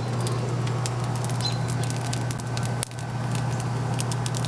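Food sizzling and crackling on a hot grill grate: a steady hiss dotted with sharp pops, over a constant low hum.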